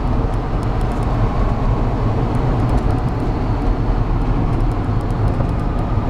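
Steady drone of a 2000 Ford F350 dually pickup cruising at about 55 mph in overdrive, heard from inside the cab. The engine is turning slowly, about 1,700 RPM, under road and tyre noise, and the cab is quiet.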